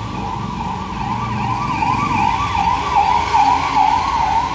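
An electronic siren-like tone warbling up and down, about two to three sweeps a second, growing louder about a second and a half in and cutting off suddenly near the end, over a steady low rumble.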